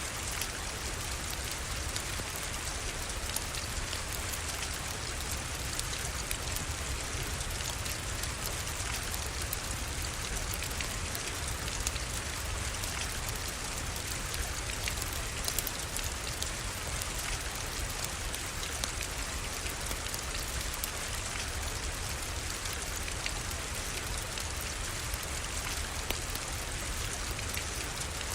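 Steady rain falling, an even hiss with scattered sharp drop ticks and a low rumble beneath.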